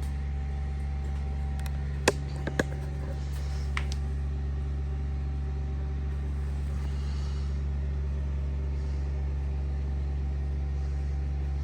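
Steady low machine hum with sharp clicks about two seconds in and a fainter one shortly after.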